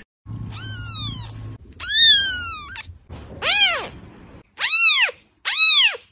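Kitten meowing five times. The first two mews are high and slide down in pitch; the three shorter meows after them rise and fall.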